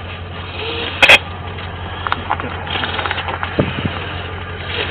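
Steady low vehicle hum inside an ambulance's patient compartment, with one sharp, loud knock about a second in and scattered small clicks and rattles of equipment being handled.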